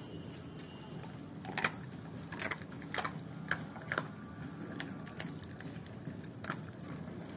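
A German Shepherd crunching raw chicken feet, a handful of irregular sharp crunches a second or so apart, over a faint steady low hum.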